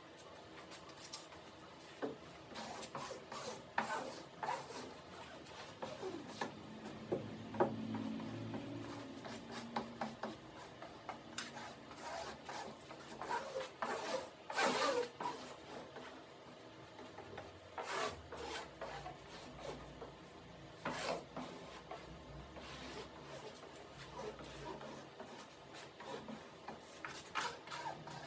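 Irregular rubbing and rustling with scattered sharp ticks and crackles: gloved hands working fibreglass cloth and plastic film over a wing's leading-edge mould during a wet epoxy layup.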